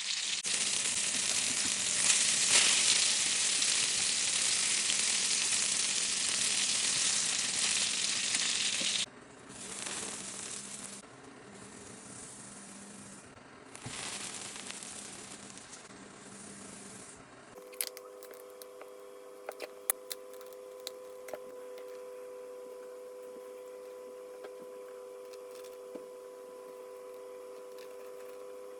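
Food frying in a hot pan: a loud, steady sizzle for about nine seconds, then sizzling in shorter spells. About two-thirds of the way in it gives way to a quieter, steady hum with a few light clicks.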